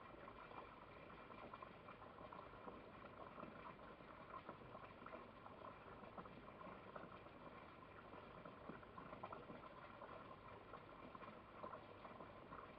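Near silence: a faint, steady crackling hiss.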